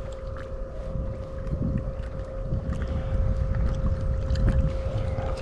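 A steady single-pitched hum of unknown cause runs under the recording, over low rumbling wind noise on the microphone and a few faint ticks.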